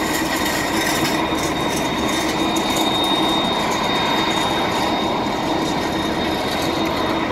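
Airport baggage tractor towing a train of empty baggage dollies past, its engine running and the metal carts rattling as they roll. A steady high tone runs over it.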